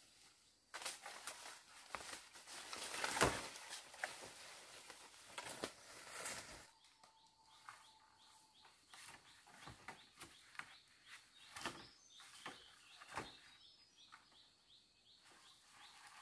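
Rustling and crackling of dry bamboo leaves and brush as a person pushes through undergrowth and handles cut bamboo poles. It comes in irregular bursts and is loudest a few seconds in.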